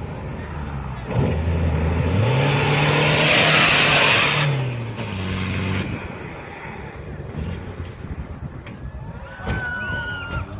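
Off-road race vehicle's engine revving hard at full throttle. The pitch climbs about two seconds in, is loudest around four seconds, then eases off. A few short high calls sound near the end.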